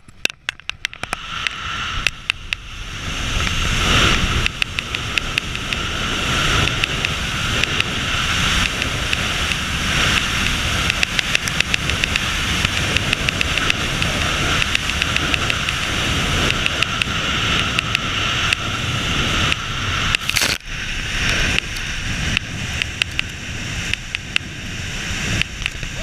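Wind rushing over a body-mounted camera's microphone in wingsuit flight. It builds over the first few seconds as airspeed picks up, then holds steady with a crackle of buffeting, and drops out briefly about twenty seconds in.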